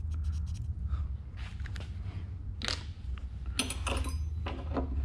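Metal hand tools clinking and scraping on a tool cart as wrenches are picked up, with a few light knocks and one sharp metallic clink that rings briefly a little past halfway. A low steady rumble runs underneath.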